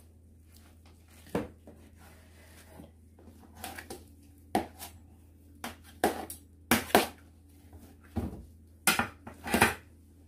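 A kitchen knife cutting through pressed pig's head meat, the blade knocking and scraping against the metal tray and wooden cutting board in about a dozen irregular clunks, louder and closer together in the second half.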